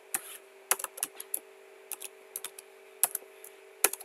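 Computer keyboard keys being typed: a run of irregular sharp keystroke clicks, some in quick pairs, as a short password is entered.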